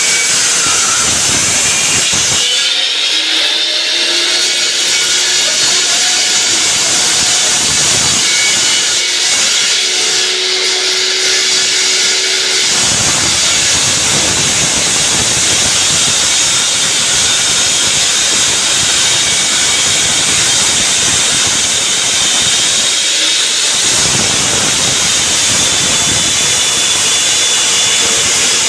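Diamond saw cutting through a reinforced concrete slab: a loud, steady, hissing grind, with a faint whine that rises and falls in pitch between about 3 and 12 seconds in.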